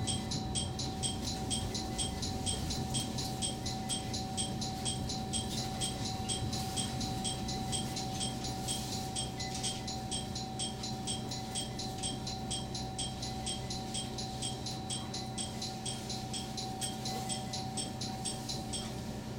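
Inside the driver's cab of a diesel express train slowing into a station: a low running rumble with a steady mid-pitched tone, under an even, rapid ticking of about two and a half ticks a second.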